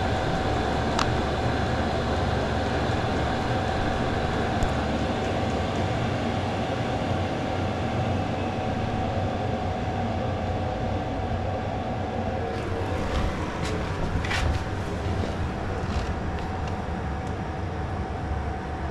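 Diesel air heater in its cool-down after being switched off: the blower fan runs on with a steady whirring noise and a constant hum, and the fuel pump has stopped. A few faint clicks come through, several of them a little past the middle.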